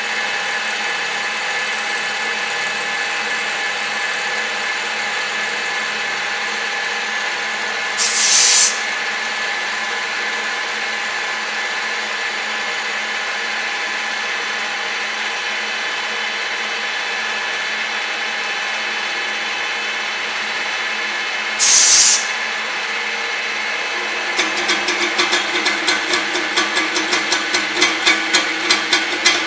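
TOS FN20 milling machine running under CNC control, dry-milling an aluminium plate with an end mill: a steady machine whine with several fixed tones. Two short, loud hisses come about 8 and 22 seconds in, and from about 24 seconds in a rapid pulsing of about four a second joins the cut.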